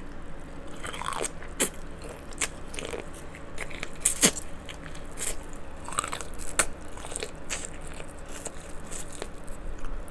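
Close-up eating of king crab legs: the shells crack and snap in a dozen or so sharp, irregular cracks, the loudest about four seconds in, with chewing and mouth sounds between.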